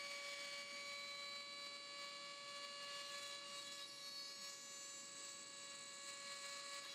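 Ozito rotary tool with a 2 mm drill bit running at a steady speed, a faint even whine, while its bit drills a small hole in a bottom-bracket cup.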